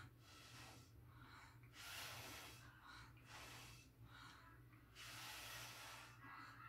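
Faint, repeated puffs of breath blown through a drinking straw onto wet acrylic pour paint, several short blows about a second apart, pushing the paint outward in a blow-out.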